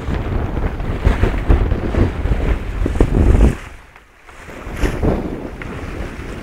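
Wind buffeting the microphone on a sailboat in about 12 knots of wind, with water rushing along the hull. The buffeting drops away briefly about four seconds in, then picks up again.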